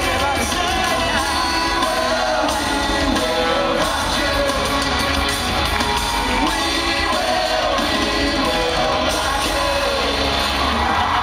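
Live pop music in an arena, recorded from within the audience: a male vocal group singing into microphones over amplified backing music, with crowd shouts mixed in.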